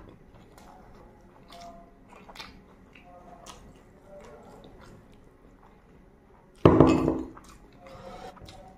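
Close-up eating sounds: soft wet mouth noises and small clicks of chewing and hand-mixing rice with gravy. About seven seconds in, a loud clunk with a short ring as a glass bowl is set down on a steel plate.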